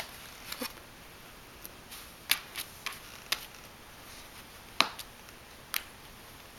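Paper plate crackling and clicking on carpet as a Persian kitten paws, noses and climbs onto it. The clicks are sharp and irregular, about nine in all, the loudest about two and a half seconds and almost five seconds in.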